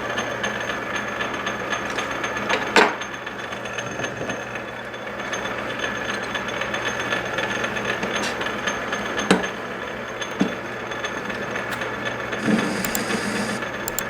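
A motor-driven metalworking machine tool running steadily with a low hum, with a few sharp knocks or clicks along the way.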